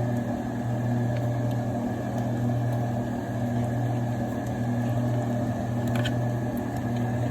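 Steady low mechanical hum, with a few faint crackles about six seconds in.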